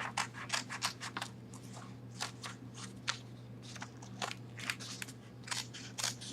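Scissors cutting through a sheet of paper: a run of irregular short snips with light paper crinkling.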